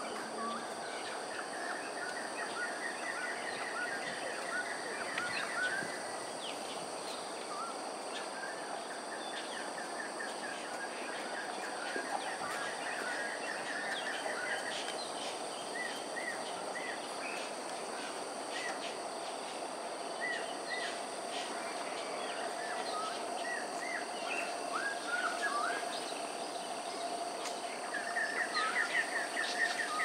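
Morning outdoor birdsong: small birds chirping, with several runs of quick repeated trilled notes, over a steady high-pitched drone and a low steady hum.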